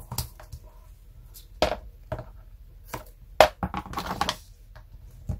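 Double-sided tape and card being handled: a series of sharp crackles and taps, with a longer crackling stretch a little past halfway, as the tape is unrolled, cut and pressed onto a paper flap.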